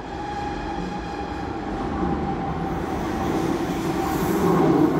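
Lausanne M1 light-metro train approaching through the tunnel into the station, its electric traction whine and wheel rumble growing steadily louder.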